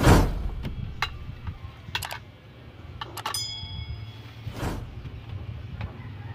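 Editing sound effects laid over the video: a sudden whoosh-like burst at the start, a few mouse clicks, and a bell ding that rings out briefly about three seconds in, from a subscribe-button animation. A second whoosh follows about a second and a half later, over a steady low hum.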